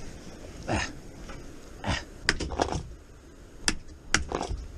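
A few scattered knocks and clicks of gear being handled against a plastic kayak hull.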